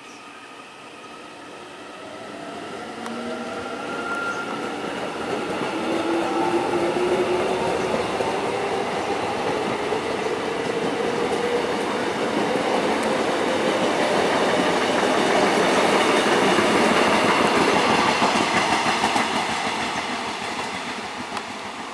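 Korail 311000-series ten-car electric multiple unit pulling out: its traction motors whine, climbing steadily in pitch as it accelerates. Under the whine there is a growing rumble of wheels on the rails, which is loudest as the train passes close and fades near the end.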